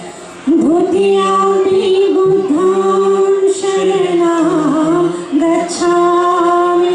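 A young woman singing solo into a microphone: long held notes with sliding ornaments, coming in about half a second in. A low sustained note sounds underneath at times.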